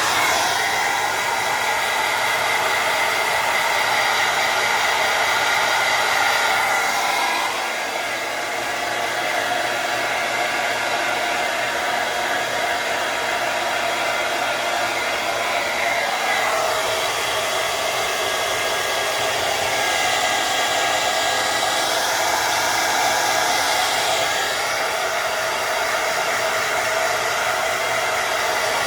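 Hair dryer blowing steadily, a rushing noise with a whine over it; its tone shifts twice, about 7 and 16 seconds in.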